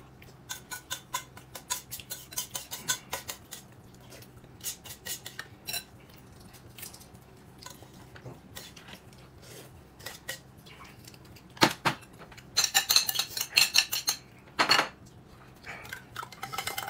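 Eating utensils clinking and scraping against a bowl during a meal. Quick light clinks come first, then a quieter stretch, then louder, denser scraping and clatter in the last few seconds.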